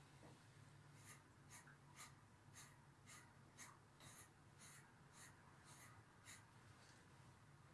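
Faint, even strokes of a grooming brush being pulled through a long-haired dog's coat, about two strokes a second for around five seconds, stopping a little after the middle.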